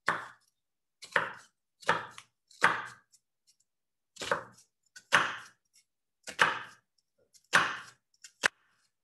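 Chef's knife slicing down through a peeled onion onto a wooden cutting board, making the vertical dicing cuts. About nine short, sharp cuts come roughly one a second, with a brief pause about a third of the way through.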